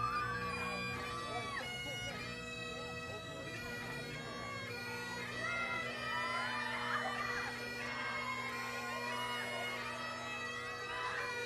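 Great Highland bagpipe played live: steady drones sounding under a chanter melody.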